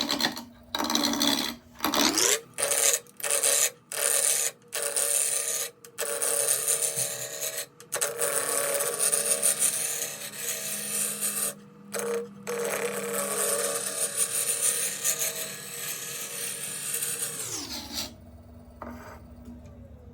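Wood lathe motor speeding up, then a turning tool cutting a spinning block of goncalo alves in repeated loud strokes with short gaps between. This is the blank being roughed down toward a cylinder. Near the end the lathe winds down, its pitch falling.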